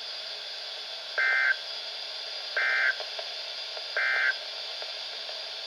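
Emergency Alert System SAME data bursts: three short, identical buzzy bursts about a second and a half apart over steady hiss. This is the End of Message code, which marks the close of the alert broadcast.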